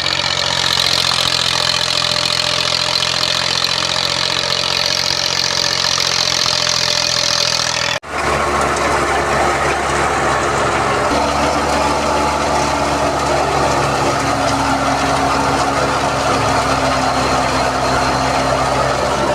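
Wheat thresher and its driving engine running steadily, a continuous machine drone with a higher whine above it. The sound drops out for an instant about eight seconds in and picks up again with a slightly different tone.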